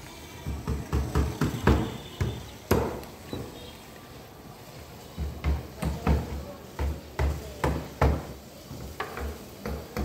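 Irregular knocks and thumps, several a second, in two runs with a lull of about two seconds between them.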